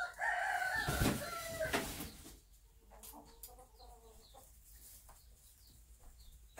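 Bantam hen clucking: a loud, drawn-out call over the first two seconds, then a few soft, quiet clucks.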